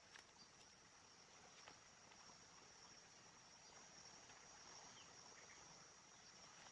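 Faint, steady high-pitched insect trill, a cricket-like chorus, with a couple of faint clicks in the first two seconds.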